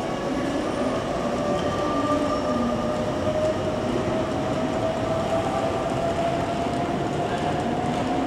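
Meitetsu 3500 series electric train pulling away and accelerating: its VVVF inverter traction drive whines in steady tones that slowly rise in pitch. Near the end a second, lower tone starts climbing.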